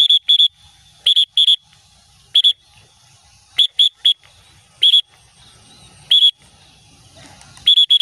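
A whistle blown in short, high-pitched blasts, about a dozen in groups of one to three: the recall call for hand-tamed munias trained to fly back to the handler when they hear it.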